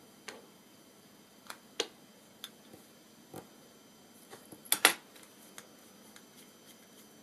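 Scattered light clicks and knocks as hands handle a 3D-printed plastic block and its bolts, with a cluster of sharper clacks about five seconds in.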